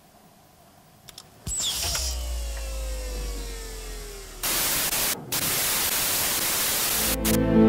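Sci-fi console sound effects: a couple of clicks, then a sudden low rumble under a whine that falls steadily in pitch, followed by loud static hiss as the screen tunes in a transmission, cutting out for a moment and stopping as music begins near the end.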